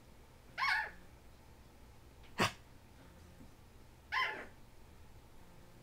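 Small Jack Russell terrier mix giving two short, high-pitched barks about three and a half seconds apart, with a single sharp click between them.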